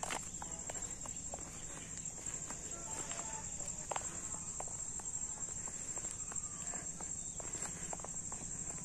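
Steady high-pitched chirring of insects, with the soft irregular footsteps of someone walking on a paved road and a few faint short chirps.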